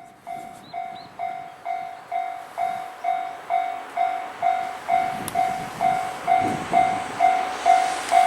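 Japanese level-crossing warning bell ringing with an even ding a little over twice a second, growing louder. From about five seconds in, the noise of an approaching train builds underneath it.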